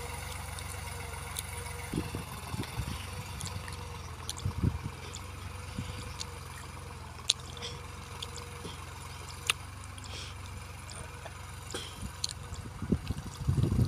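Distant tractor engine running steadily as the tractor pulls a cultivator between cotton rows, a low even hum. Irregular low rumbles break in now and then, loudest near the end.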